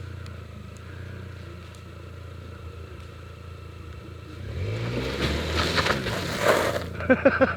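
Toyota Yaris engine running low and steady, then revving up about four and a half seconds in as the car pulls on a rope tied to a building, with a loud rush of noise over the revving near the end.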